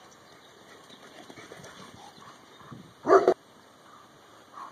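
Bernese Mountain Dog giving one short, loud bark about three seconds in, during play.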